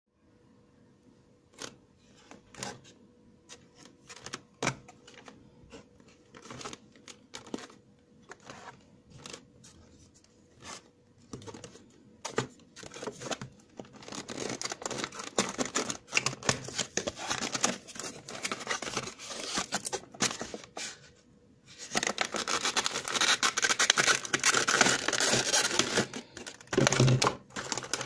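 Cardboard and plastic packaging being handled and opened: scattered taps and knocks of a small box on a desk, then long stretches of rustling and crinkling as the box slides from its paper sleeve and a clear plastic blister tray is handled, with a few heavier knocks near the end.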